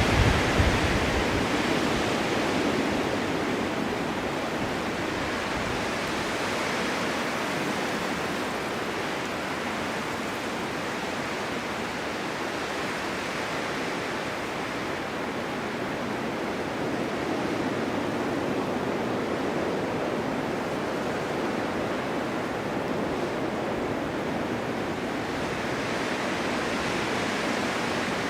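Blizzard wind blowing snow, a steady rushing hiss that swells and eases slowly over the stretch, with a few low gust buffets on the microphone near the start.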